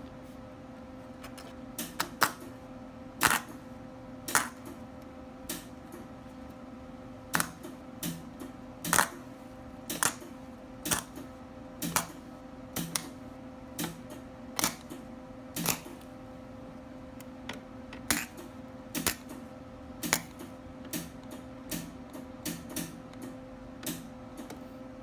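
A series of sharp, irregular clicks or taps, roughly one a second, over a steady electrical hum.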